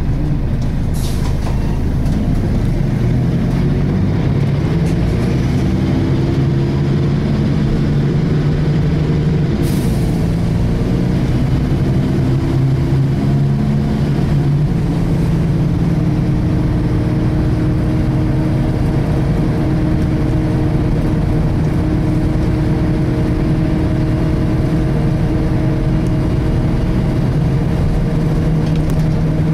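Inside a Volvo B10BLE single-deck bus under way: the diesel engine and driveline running, with whines that rise in pitch as the bus picks up speed over the first ten seconds or so and then hold steady. The whine is the differential sound the uploader finds strange on this model. Two brief sharp clicks come about a second in and near ten seconds.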